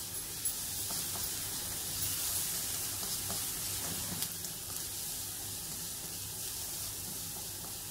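Chopped onions, green chillies and curry leaves sizzling steadily in hot oil in a non-stick pan as they are stirred with a wooden spatula, with a couple of light taps of the spatula against the pan.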